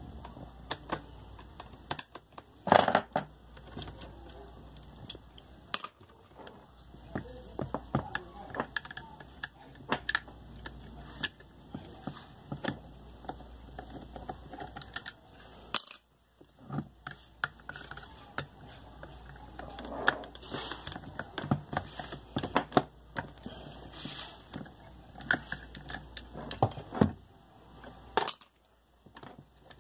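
Irregular clicks, taps and short rattles of hand tools and small metal and plastic parts while an electric fan's gearbox is unscrewed and taken off, with a few louder knocks.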